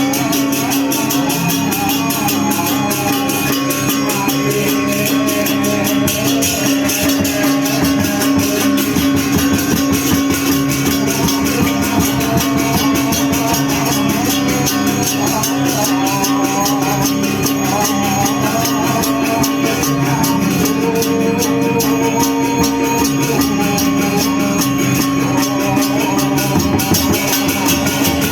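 Music plays throughout: a steady held low tone under a dense, fast, even rhythm and shifting melody lines.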